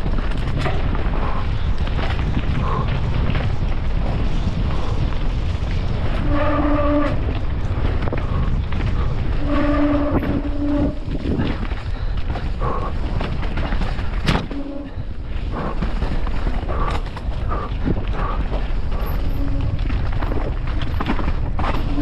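Enduro dirt bike engine running hard while riding a race stage, under a heavy low rumble, with a few moments of a steady held engine note. Frequent knocks and clatter come from the bike on rough ground, the sharpest about fourteen seconds in.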